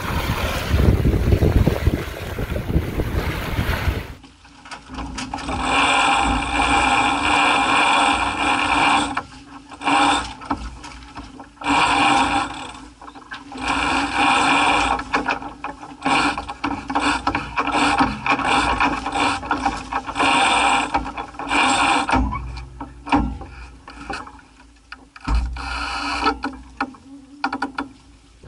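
Wind and water rush for about four seconds. Then a sailboat's cockpit sheet winch is cranked by hand with a winch handle to trim the jib, its pawls ratcheting in bursts of one to several seconds with short pauses between.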